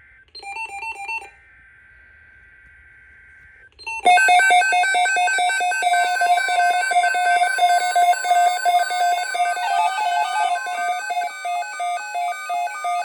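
NOAA Weather Radio emergency alert: a buzzy burst of digital header data, then from about four seconds in a loud, rapidly pulsing electronic alarm with a steady alert tone beneath it, signalling a tornado watch.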